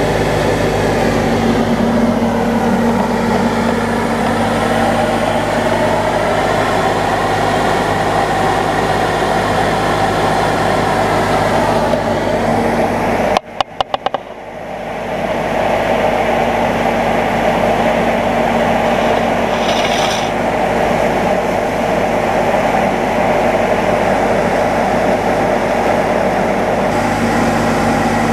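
Steady loud drone of a grain dryer fan together with a tractor engine running to drive a grain auger. About halfway through it breaks off briefly with a few clicks, then swells back to the same steady level.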